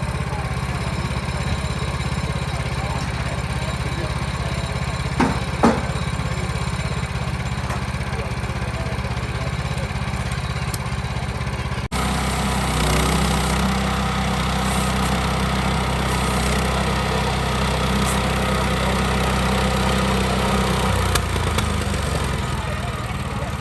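An engine running steadily, a constant low hum, with two sharp clicks about five seconds in. About halfway there is an abrupt break, after which a similar engine hum carries on slightly louder.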